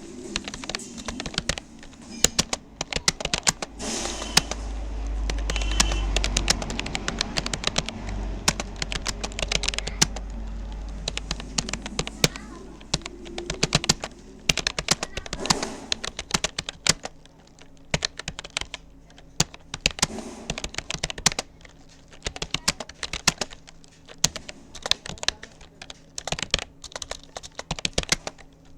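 Rapoo computer keyboard being typed on steadily: fast, irregular key clicks throughout. A low rumble comes in about four seconds in and fades out after about eight seconds.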